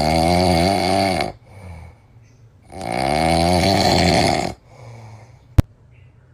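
A sleeping calico cat snoring: two long, loud snores, each followed by a softer breath. A single sharp click about five and a half seconds in.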